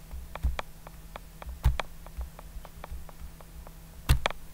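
Computer mouse clicking repeatedly while the slide-show pen menu is being worked: short sharp clicks a few times a second, with three louder ones, over a faint steady hum.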